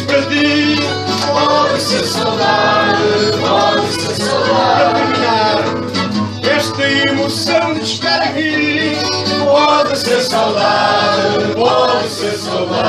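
Fado being performed: a voice singing a slow, wavering melody over plucked guitar accompaniment.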